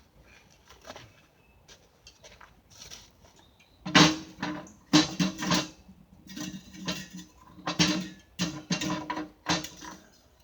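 Repeated scraping strokes of a tool on the backhoe's metal, about ten short loud strokes starting about four seconds in, each ringing with the same low tone, as old grease is scraped off.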